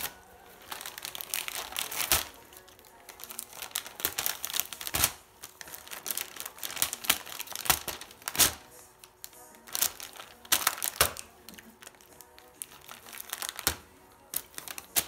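Blue heeler cattle dog ripping open shiny foil gift wrap with its teeth, the foil crinkling and crackling irregularly with several sharp, louder tears.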